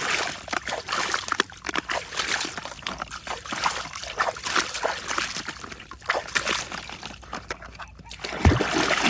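Water splashing and dribbling over plastic toy vehicles as they are washed, in many small irregular splashes.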